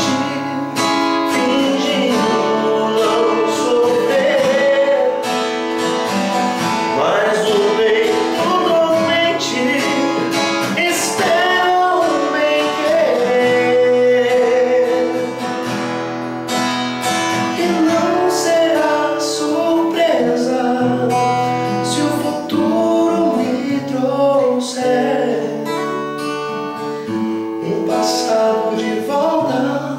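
Acoustic guitar strummed steadily while a man sings along in Portuguese, his voice gliding and wavering over the chords.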